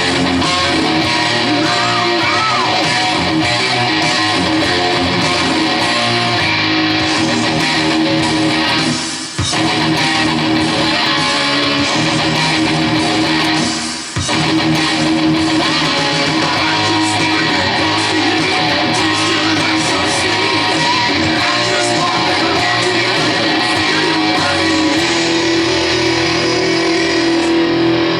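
Electric guitar played through a Boss GT-6 multi-effects processor running direct into a PA. It plays continuously, dropping away briefly twice, about nine and fourteen seconds in.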